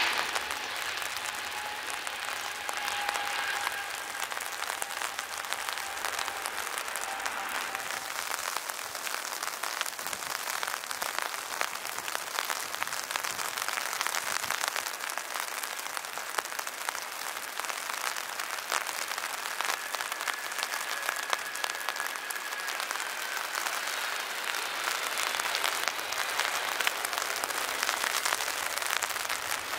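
Heavy rain pattering steadily, with the faint whine of airliner jet engines over it. The whine slowly falls in pitch in the first several seconds, and again around two-thirds through as another jet passes.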